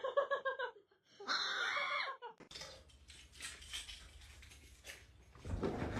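A cat vocalising: a short, wavering trill-like call, then a longer, harsher meow about a second later, followed by fainter rustling and handling noise.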